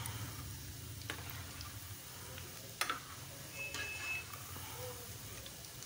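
Besan-coated potato fries sizzling as they deep-fry in hot oil, with a few sharp clicks as a metal spoon stirs them against the pan.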